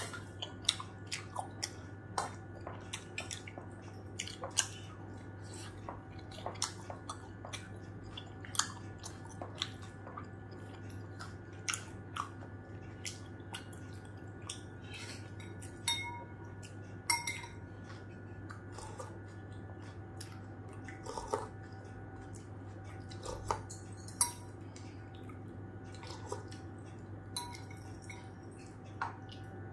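Close-miked chewing of steamed momos, with many short, irregular wet clicks and smacks of the mouth.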